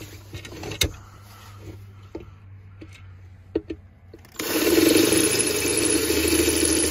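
A few faint clicks, then about four seconds in a cordless drill starts and runs steadily, its bit drilling out a mounting hole in the metal flange of a 700 W inverter so that the screws will fit.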